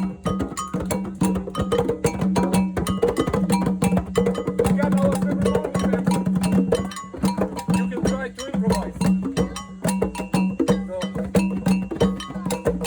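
Live band music in an instrumental passage: fast, busy hand percussion with sharp wood-block-like clicks over a steady held low note.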